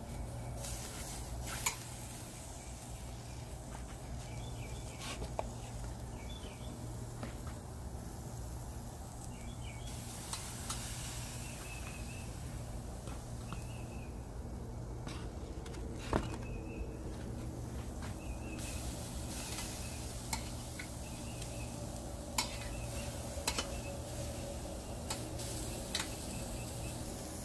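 Raw chicken breasts being laid onto a Weber Smokey Joe's wire grate over hot charcoal: scattered sharp metal clicks and clinks against the grate, with a faint sizzle.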